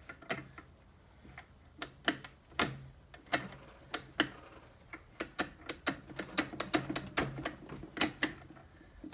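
Irregular metallic clicks and light knocks from a Honda B-series five-speed transmission as its case is worked down onto the other case half, the shift forks and gears clicking as they are moved to let it seat. The clicks are sparse at first, then come two or three a second.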